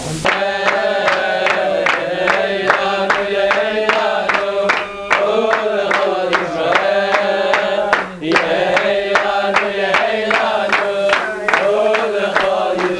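A group of people singing a song together while clapping their hands in time, about two claps a second. It starts suddenly right at the beginning and breaks off briefly at about eight seconds before going on.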